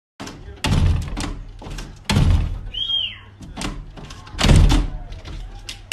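A dog's paws banging against a glass sliding door, the door thudding and rattling in its frame in an irregular string of heavy knocks. A brief high squeak comes just before the middle.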